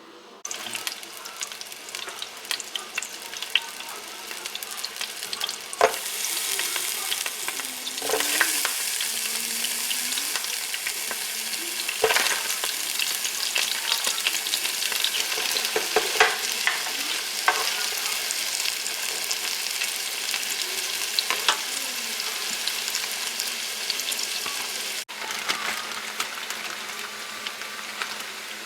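Food frying and sizzling in a pan, with knocks and scrapes of a utensil stirring it several times. The sizzle drops quieter suddenly near the end.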